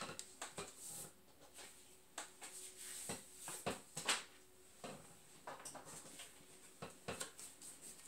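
Tarot cards being handled on a table: a scatter of soft clicks, taps and rustles as cards are picked up and set down.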